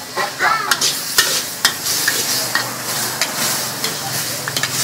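Meat and vegetables sizzling as they are stir-fried in a large metal wok, with two metal ladles stirring and scraping and clanking sharply against the pan several times.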